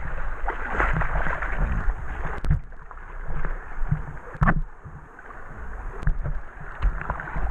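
River water lapping and sloshing against an inner tube right at a tube-mounted GoPro, with a few sharp knocks as the camera housing bumps or is splashed.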